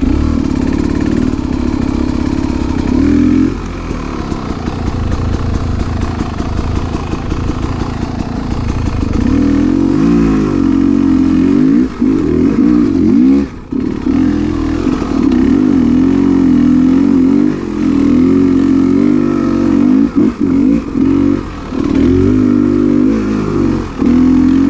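2019 Beta 300RR Race Edition's two-stroke single-cylinder engine revving up and down with the throttle while the dirt bike is ridden. The engine note drops off sharply and briefly about halfway through, and dips a few times near the end.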